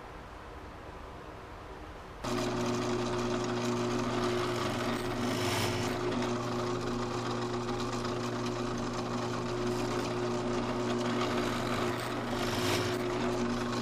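A power tool's electric motor running steadily with a constant hum. It starts suddenly about two seconds in and cuts off suddenly near the end, with two brief louder, rougher moments along the way.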